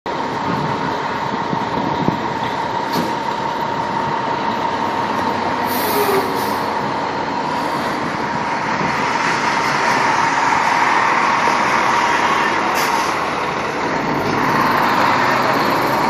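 Fire engine's diesel engine running at idle, a steady rumble with a steady high tone held over it. A short knock comes about two seconds in and a brief hiss about six seconds in, and the engine grows a little louder in the second half.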